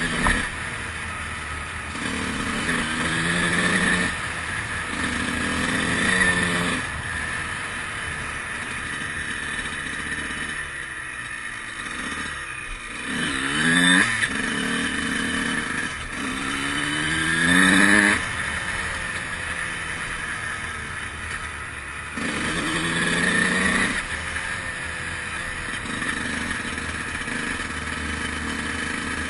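A 2003 Honda CR125's two-stroke single-cylinder engine under way, revving up in about five rising surges. Between the surges it runs more steadily or eases off.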